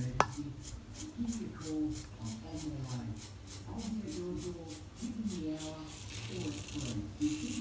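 Supply safety razor with a well-worn blade scraping stubble in short, quick strokes, about four a second, as it buffs over the face, with a sharp click right at the start.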